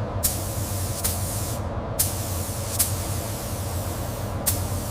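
Paint spray gun hissing steadily as it lays down the first coat, over a steady low hum, with a few sharp clicks where the spray briefly stops and restarts.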